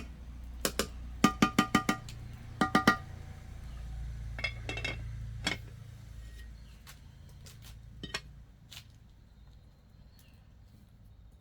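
Quick runs of sharp, ringing clinks, all at the same pitch, in groups of two to five, then thinning to scattered clicks that fade away over a low steady rumble.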